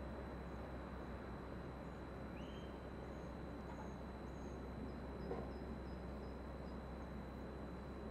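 Low steady background noise with a thin, steady high tone, and a few faint, short high chirps from small birds, the first about two seconds in.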